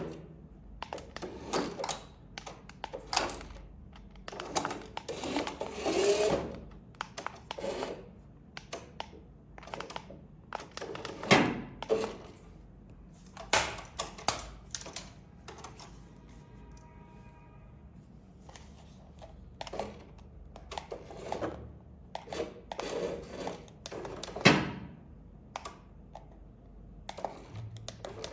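Irregular clicking, tapping and rustling of hard plastic toy parts and packaging being handled, with several sharper knocks. There is a brief buzzing tone about midway.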